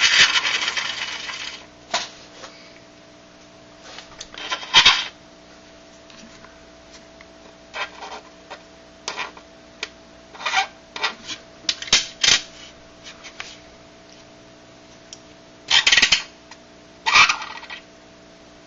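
Metal coin pressed onto dry ice, squealing and buzzing in irregular bursts: a long loud one at the start, then shorter intermittent ones. The warmer coin turns the dry ice to gas beneath it, and that gas sets the coin vibrating against the ice.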